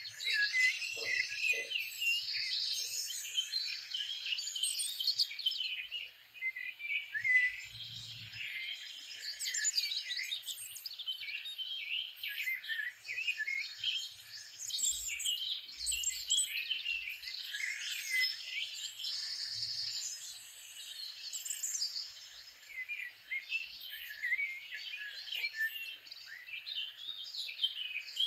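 Dense chorus of many small birds chirping and singing, their short high calls overlapping without a break.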